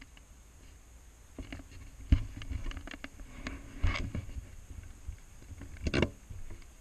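Irregular low wind rumble and scattered knocks and rustles on a helmet-mounted camera's microphone, with a sharp knock about two seconds in and further clusters of clicks near four and six seconds.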